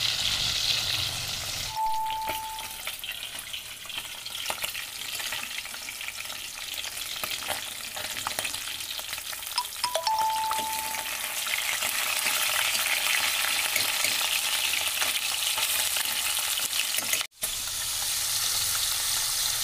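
Espada (cutlassfish) pieces frying in a pan, a steady crackling sizzle with a spatula clicking and scraping against the pan as the pieces are turned. Two brief high tones sound, about 2 s and 10 s in, and the sound cuts out briefly near the end.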